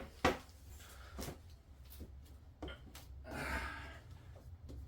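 A few light knocks and taps from a cabinet door being handled against a cabinet face frame, the strongest just after the start, followed by a brief soft rustle about three and a half seconds in.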